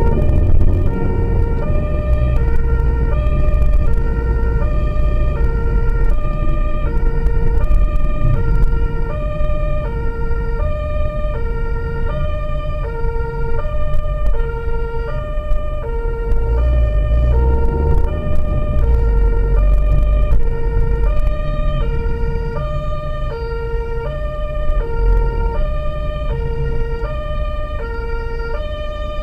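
German two-tone emergency siren (Martinshorn) on a medical transport vehicle, sounding continuously as it alternates evenly between a low and a high tone to signal an emergency run. It is heard from inside the vehicle's cab over the low rumble of engine and road.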